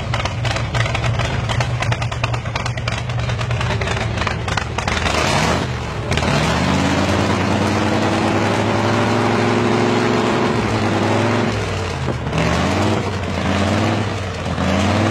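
V8 engine of a custom hot-rod tractor with open individual header pipes, idling with a choppy beat. About five or six seconds in it is revved up and held high for several seconds, drops back, and is revved once more near the end.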